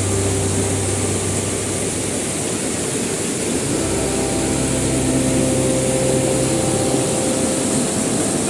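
Steady rushing water of a river and waterfall, with low steady tones beneath it that change pitch about halfway through.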